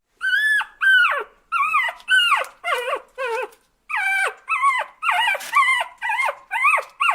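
An animal giving a quick series of short, high cries, about two a second, each sliding sharply down in pitch.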